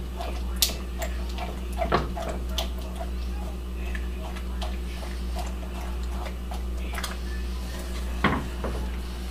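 Wooden spoon stirring chocolate chips melting into sweetened condensed milk in a cast-iron pot, the spoon clicking and scraping softly and irregularly against the pot, over a steady low hum.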